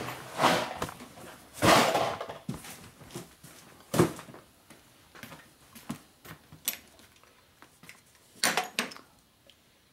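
Rummaging through cardboard boxes of parts: two loud rustling scrapes in the first two seconds, then a sharp knock about four seconds in. A few light clicks and a quick cluster of clinks from small metal parts handled near the end.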